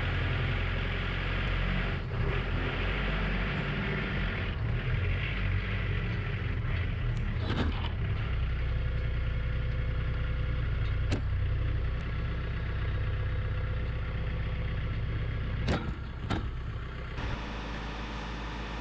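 An engine running steadily, with several sharp knocks spread through it. The engine sound drops away near the end.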